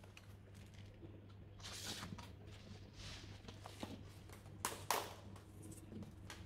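Clear plastic storage boxes being handled and shifted with light rustling, then the lid of one popped open with two sharp plastic clicks close together, about five seconds in.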